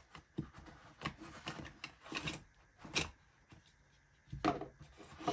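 Hands handling cords and accessories from a jump starter's kit: irregular rustles, light clicks and knocks, with a louder knock about four and a half seconds in.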